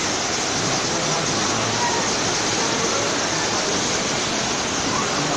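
Steady, loud rushing water from the rapids of a river-raft ride, an even churning noise with no pauses.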